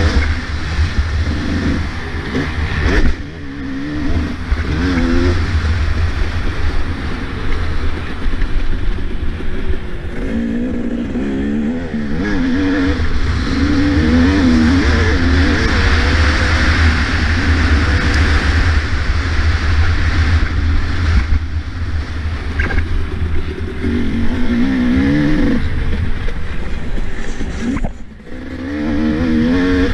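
Two-stroke motocross bike engine revving up and down hard as it is ridden round the track, the throttle briefly chopped about three seconds in and again near the end. Heavy wind buffeting on the microphone underneath.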